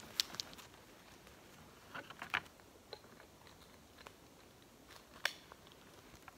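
A few scattered faint crunches and clicks: snowshoes shifting on packed snow and a sled-pulling harness being handled.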